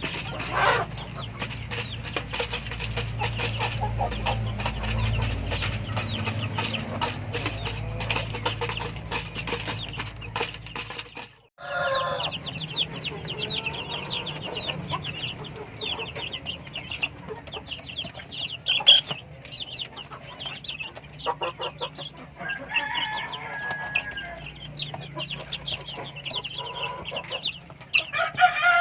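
Flock of four-month-old Rhode Island Red chickens clucking, with many quick short calls throughout and a brief break about eleven seconds in.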